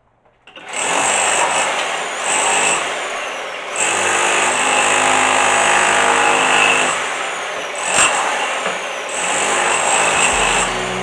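Power tool running loud in spells, starting about half a second in, with short let-offs near four, seven and nine seconds.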